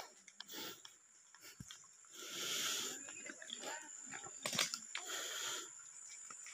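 Soft rustling and crunching of footsteps through dry leaves and cut brush, in a few separate stretches with small snaps of twigs.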